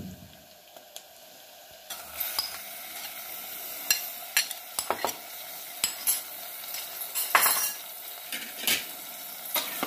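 Raw mutton liver pieces hitting hot oil and fried onions in an aluminium pressure cooker: a sizzle starts suddenly about two seconds in and carries on steadily. Scattered sharp clicks and scrapes of utensils against the pot sound over it.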